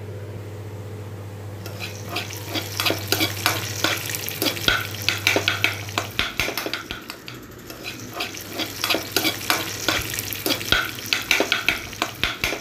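A spatula stirring egg rice sevai in a frying pan, scraping and clicking against the pan in quick, irregular strokes from about two seconds in. A steady low hum underneath stops about six seconds in.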